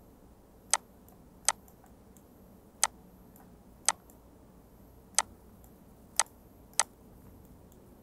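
Computer mouse clicking: seven sharp single clicks, irregularly spaced about a second apart.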